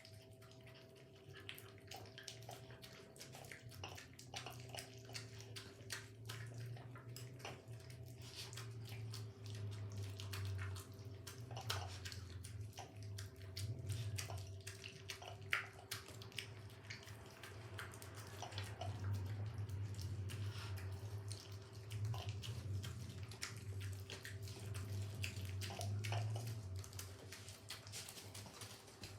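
Water splashing and dripping in a small tub, with many short clicks and taps over a steady low hum.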